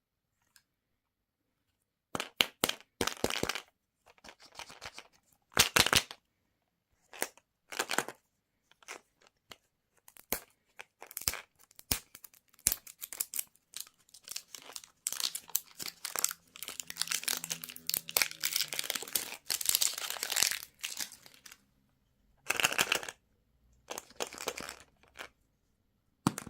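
Plastic candy wrapper being crinkled and torn open in irregular bursts of sharp crackles, starting about two seconds in.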